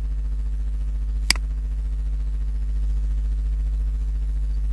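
Steady low electrical mains hum with a single sharp mouse click about a second in.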